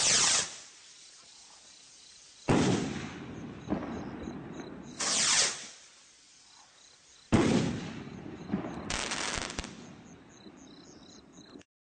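Consumer firework rockets launching and bursting: a rushing whoosh that falls in pitch as a rocket climbs, then a sharp bang with a rolling echo about 2.5 s in; a second whoosh about 5 s in, another loud bang about 7 s in, and a spell of crackling a second later. Faint cricket chirps between the blasts; the sound cuts off abruptly near the end.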